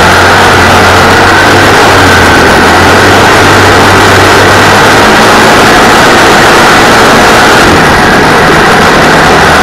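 Engine of a 602 cc racing buggy, heard from on board, running hard and steady at race speed, very loud throughout.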